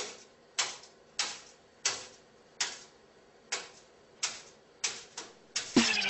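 Parrot hopping on a hard tabletop, its feet landing in sharp taps about every two-thirds of a second, coming faster near the end, where electronic music with a beat comes in.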